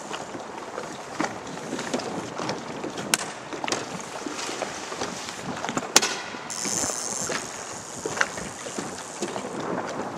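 Wind and water noise around a small aluminium fishing boat, with many small ticks. There are two sharp knocks, about three and six seconds in, the second the loudest, and a brief high buzz just after it.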